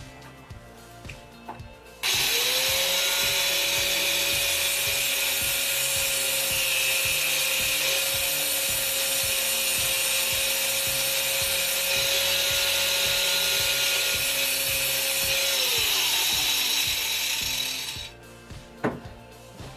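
Angle grinder switched on about two seconds in: it spins up to a steady high whine with a loud rushing hiss, runs for about fourteen seconds, then is switched off and winds down. A single sharp click follows near the end.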